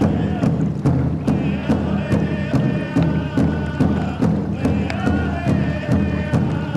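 Background music: a song with a steady beat, with a voice singing in phrases over it.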